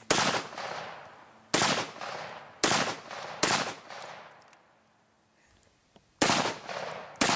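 Hi-Point C9 9mm blowback pistol firing six shots of black powder loads with a heavy cast bullet, at an uneven pace with a pause of about two seconds before the last two. Each report trails off in an echo.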